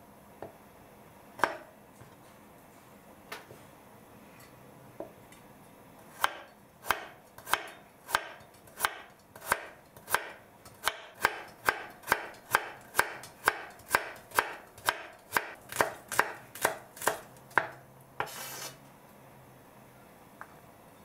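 Kitchen knife slicing a red radish on a wooden cutting board. A few single knocks come first, then a steady run of about twenty cuts, roughly one and a half a second, each a sharp knock of the blade on the board. A short scrape follows near the end.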